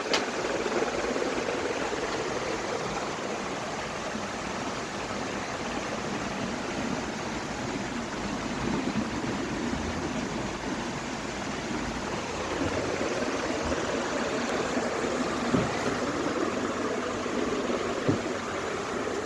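48-inch PBS ceiling fan running, a steady rushing whoosh of air from its spinning blades, with a few brief clicks.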